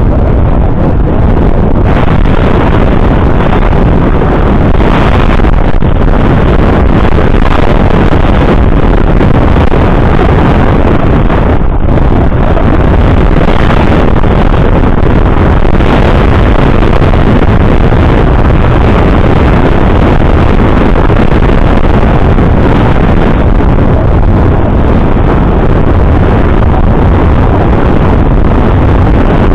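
Wind blowing hard across the microphone: a loud, steady rushing noise with no let-up.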